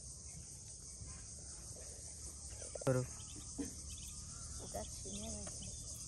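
Steady high-pitched chorus of crickets and other insects, with a few short faint calls in the middle.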